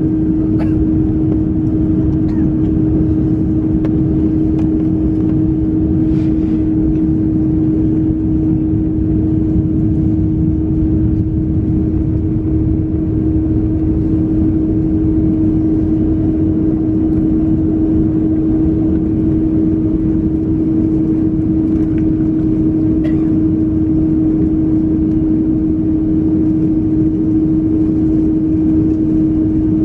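Cabin noise of an Airbus A330-200 taxiing: a steady low rumble from the engines at taxi power with a constant hum running under it.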